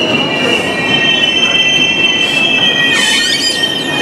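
VR double-deck InterCity coaches rolling slowly past at the platform with a steady, high-pitched metallic squeal from the wheels. About three seconds in, a brief burst of higher, wavering squeals comes in over it.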